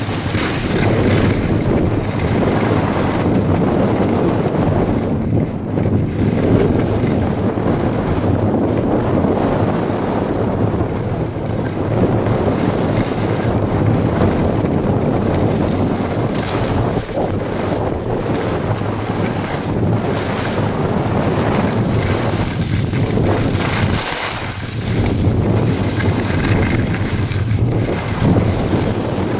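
Wind buffeting the microphone of a camera carried by a downhill skier, mixed with the hiss of skis sliding over snow: a loud, steady rushing that dips slightly now and then.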